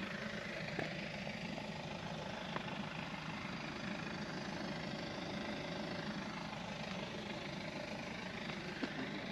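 Steady low hum of a running engine, with a few faint clicks.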